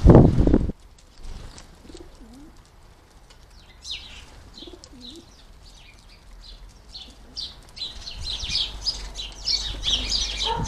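Garden birds at a bird bath: a loud burst of wing flapping in the first second, then a pigeon cooing faintly twice, low and curving, while small songbirds chirp and twitter throughout, busier toward the end.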